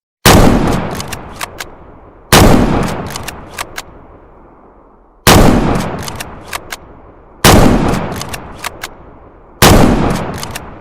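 Springfield M1903 bolt-action rifle firing five single shots, spaced about two to three seconds apart. Each shot dies away in a long echoing tail, with a few short sharp clicks following it.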